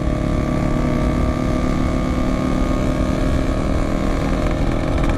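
Yamaha RX-King two-stroke single-cylinder motorcycle engine running at a steady cruise on the move, its exhaust note holding an even pitch, with wind rumble on the helmet-mounted microphone.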